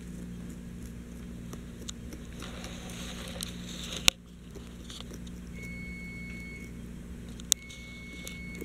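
Small dog gnawing a knotted rawhide chew: soft scattered chewing and crunching, with two sharp clicks about four seconds in and near the end, over a steady low hum.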